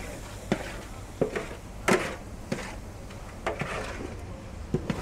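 Long wooden paddle knocking and scraping against the side of a large metal cooking pot as a thick mixture is stirred: a string of irregular knocks, the loudest about two seconds in, over a steady low hum.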